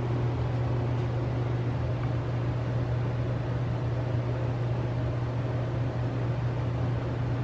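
Steady low mechanical hum with an even hiss over it, like an appliance or fan running.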